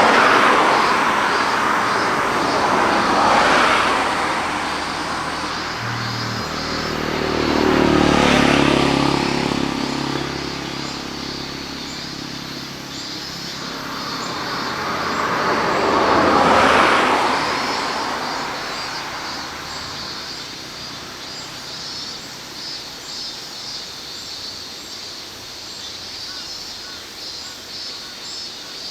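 Road vehicles passing one after another, each swelling and fading; one about a quarter of the way in carries an engine note that drops in pitch as it goes by. A steady pulsing chirr of insects runs underneath.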